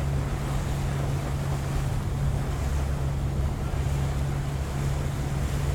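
Boat engine running steadily at a constant low drone, with wind buffeting the microphone and the wash of water.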